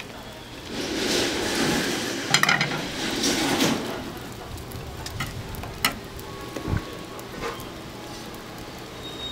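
Food frying in oil on a street-stall griddle, the sizzling louder for a few seconds near the start, with a metal spatula scraping and a few sharp clinks against the griddle.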